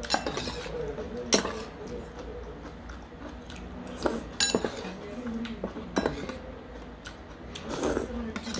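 Metal spoon clinking against a stainless steel bowl several times as soup broth is scooped, with slurping as the hot broth is sipped off the spoon.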